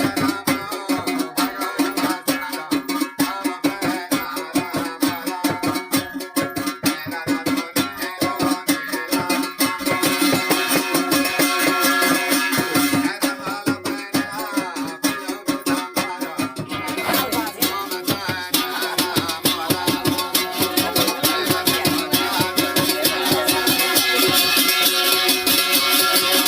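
Garhwali jagar folk music: a fast, steady percussion rhythm with plucked string instruments and rattling.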